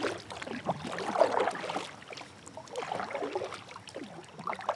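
Kayak paddle strokes: the blades dip and pull through river water on alternating sides, with splashes, gurgles and drips.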